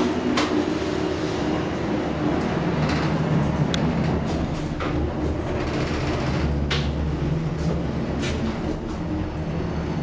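Passenger lift (elevator) car sounding as it runs: a steady low hum and rumble with scattered clicks and knocks.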